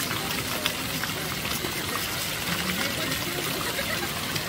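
Thin fountain jets of water falling and splashing steadily into a pool, a continuous patter of small splashes.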